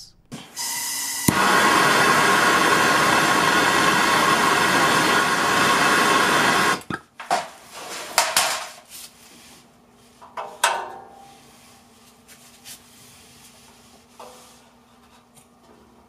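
Bernzomatic TS8000 torch on MAP-Pro gas: gas hissing, an igniter click about a second in, then the flame burning with a loud steady hiss for about five seconds before it cuts off suddenly. After that come scattered light clinks and taps of tools and metal.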